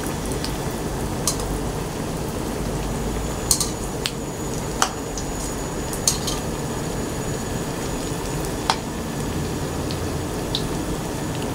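Flour-battered jackfruit pieces deep-frying in oil in an aluminium wok, giving a steady sizzle. A few sharp clinks come now and then as a slotted metal spatula turns the pieces against the pan.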